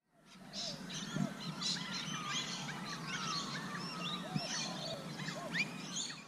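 Several birds chirping and calling at once, many short whistled notes rising and falling in pitch and overlapping. The sound fades in at the start and cuts off abruptly at the end.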